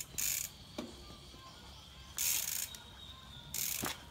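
Mountain bike's rear freehub ratcheting in three short buzzing bursts as the rider coasts between pedal strokes while pulling the front wheel up into a manual.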